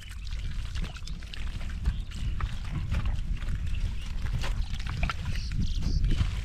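Shallow water and mud splashing and sloshing irregularly, with scattered small clicks and splashes over a steady low rumble.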